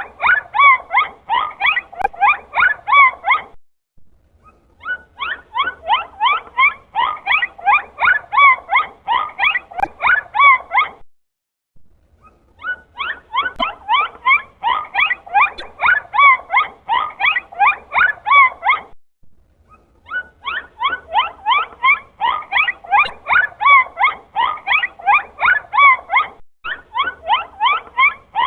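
Dolphin calls: rapid runs of short squeaky whistles that bend up and down in pitch, about three a second, in stretches of several seconds broken by brief pauses.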